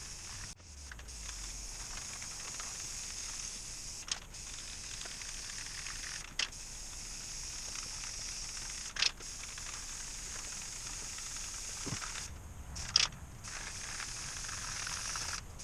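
Aerosol spray paint can spraying in a steady hiss, stopping briefly a few times, with several sharp clicks in between.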